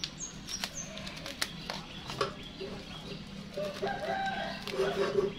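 A rooster crows once, a drawn-out call starting about three and a half seconds in and the loudest sound here. Scattered sharp clicks come before and during it.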